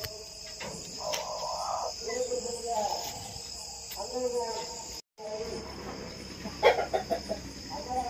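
Steady chorus of crickets, a continuous high trill, under low voices. A brief loud clatter comes near the end, and the sound drops out for an instant about five seconds in.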